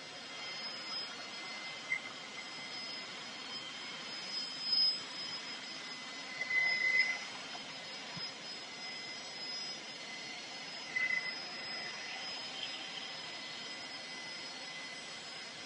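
Distant jet aircraft engines running: a steady rushing hiss with a high, steady whine, which flares louder briefly a few times.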